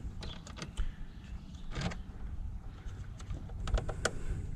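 Scattered light clicks and taps of hand tools and wiring being handled during work on a car's fuse block, with a short run of quick clicks near the end.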